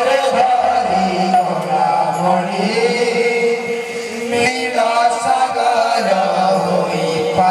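Kirtan troupe's male voices singing a long-held, chanted melody with music accompaniment.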